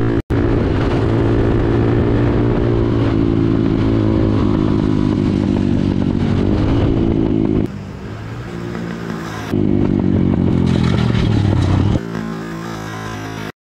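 Aprilia 150 scooter engines racing at high revs, heard from a following motorcycle, their pitch slowly sinking and rising through the bends. The sound jumps abruptly at several edits and cuts out just before the end.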